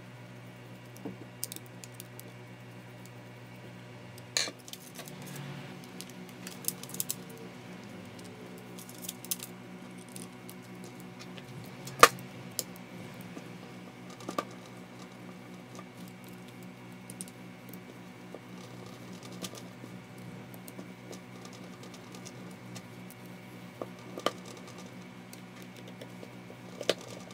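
Scattered light clicks, taps and small scrapes of a hand screwdriver working the screws of a Makita M693D 12V impact driver's plastic housing and metal hammer case, as the tool is handled. One sharp click about twelve seconds in is the loudest. A steady low hum runs underneath.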